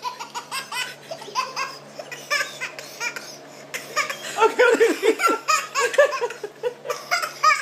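A toddler laughing in quick repeated bursts, louder and denser in the second half.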